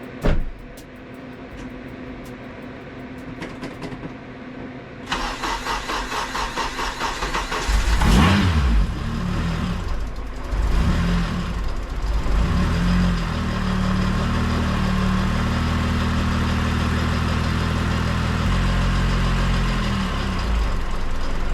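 A click, then the supercharged K24 engine of an Acura RSX cranks with an even rhythm for about three seconds and catches with a loud rev. It settles into a steady idle. This is the engine's first start on a quick base map after the supercharger install.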